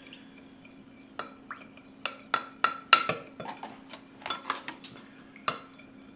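Spoon stirring a peanut butter and water mixture in a Pyrex glass measuring cup, clinking irregularly against the glass with a short ring, about fifteen clinks. The loudest clink comes about three seconds in.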